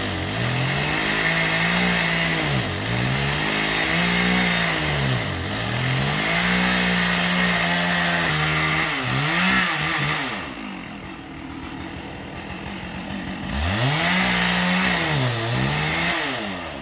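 Two-stroke chainsaw running at high revs, its pitch dipping and climbing back every two to three seconds. About ten seconds in it drops to a low idle for roughly three seconds, then revs up again.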